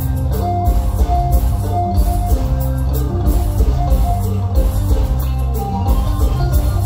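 Live mor lam band playing an instrumental passage: drums and bass keep a steady beat under a repeating line of short melodic notes.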